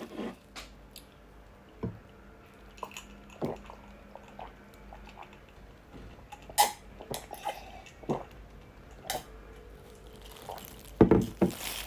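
Quiet eating sounds over soup: scattered light clicks and small wet, dripping sounds, with a louder cluster near the end.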